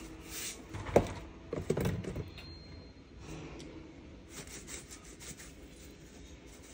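Kitchen containers being handled while a pot is seasoned: one sharp knock about a second in, then a quick run of smaller knocks and clatter, followed by light rustling and faint clicks.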